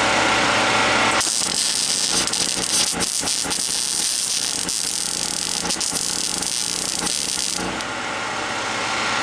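Welding arc crackling and hissing as a bead is laid, starting about a second in and cutting off about a second and a half before the end. A steady low machine hum runs underneath.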